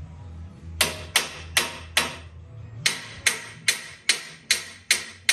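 Hammer tapping a clamped steel tube, about a dozen sharp metallic strikes, each ringing briefly. They come at roughly two and a half a second, in two runs with a short pause after the fourth, knocking the tube square on the lift arms.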